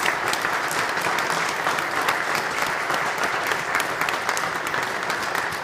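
A congregation applauding steadily, a dense patter of many hands with individual sharp claps standing out close by.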